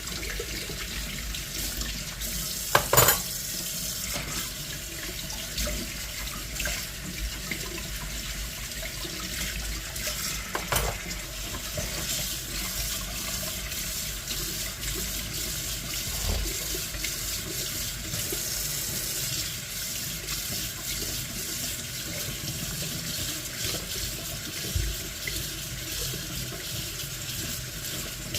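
Tap water running steadily into a sink, with a few sharp knocks or clinks, the loudest about three seconds in.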